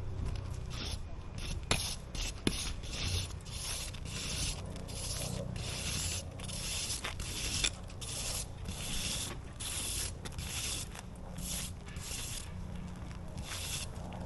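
Rhythmic hand scraping, one hissy stroke after another at roughly one and a half strokes a second, as of a scraper or stiff brush worked back and forth over a hard surface.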